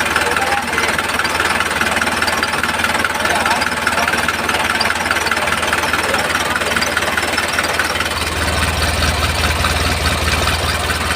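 Small electric motor and gearing of a homemade model tractor running steadily, with a constant whine. A low hum grows stronger about eight seconds in.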